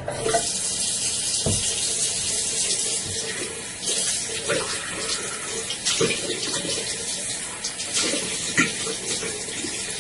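Water running from a bathroom tap into a sink while hands are washed under it, a steady rush broken by irregular splashes.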